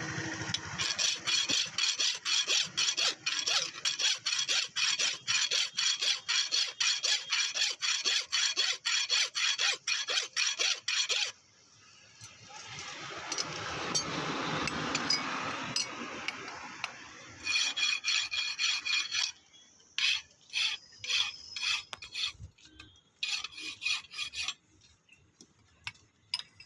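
A hand file rasping on steel in quick, even back-and-forth strokes, about three a second, for some ten seconds. A longer scrape then swells and fades, followed by further shorter runs of filing strokes that grow sparser near the end.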